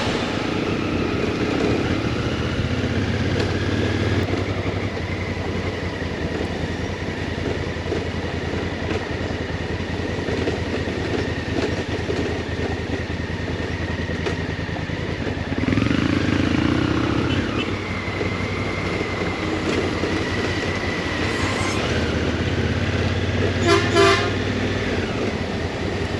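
A Honda Africa Twin motorcycle being ridden, heard on board as a steady engine and wind rumble. It swells for a moment about two-thirds of the way through, and a short horn toot sounds near the end.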